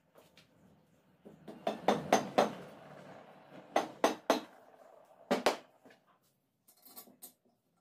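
Hammer blows on a steel bicycle suspension fork, struck through a cloth: about nine sharp knocks in three quick groups of four, three and two. Lighter knocks follow near the end.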